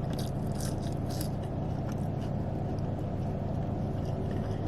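Steady low rumble of a car idling, heard from inside the cabin. Faint chewing sounds come in during the first second or so.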